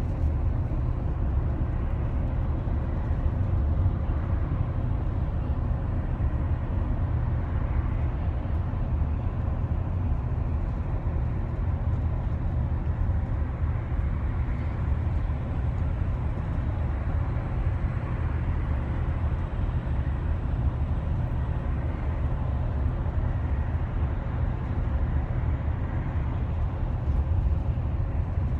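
Double-decker bus cruising on a highway, heard inside its upper deck: a steady low engine and road rumble with a fainter hiss of tyres and wind.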